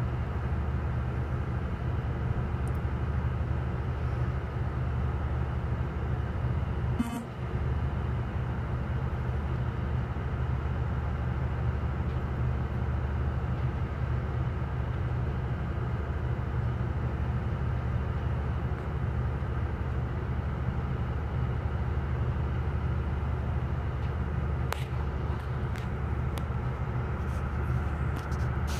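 A ferry's engines droning steadily, a low, even hum with a brief knock about seven seconds in.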